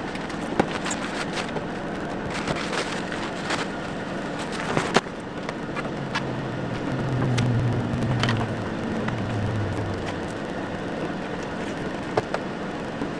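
Steady hum of a parked car running with its windshield defrost on, with a deeper hum swelling about halfway through. Over it come scattered knocks, clicks and rustling as a tarp canopy and its poles are taken down off the roof rack.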